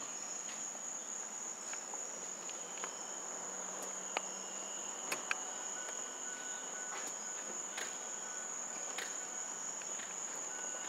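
Crickets trilling in a steady high-pitched drone, with a few faint clicks around the middle.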